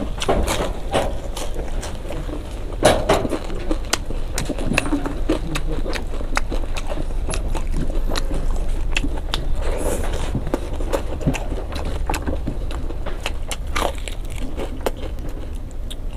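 Close-up eating sounds: chewing, wet lip smacks and many short mouth clicks as rice and fried fish are eaten by hand, over a low steady hum.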